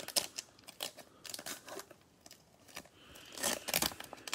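Plastic cellophane wrapper of a Panini Prizm football card cello pack crinkling and tearing as gloved hands peel it open: a run of small crackles, with a louder crinkle about three seconds in.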